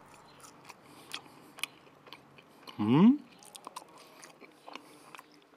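A person chewing a mouthful of soft curly fries, with faint, irregular wet mouth clicks. About three seconds in there is a short rising hum from the eater.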